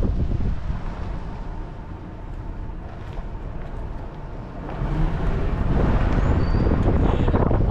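Wind buffeting the microphone over the low rumble of a vehicle moving slowly. It eases off in the middle and picks up again about five seconds in.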